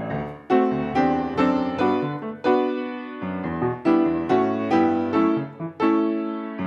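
Grand piano played solo: a slow run of chords, each struck and then ringing and fading before the next.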